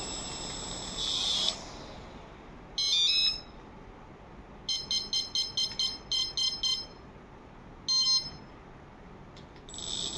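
Homemade RC helicopter's electric motor whining steadily at speed, then dropping away about a second and a half in. Electronic beeps follow: a short chirp, then about eight quick beeps at roughly four a second, then another chirp. The whine picks up again near the end.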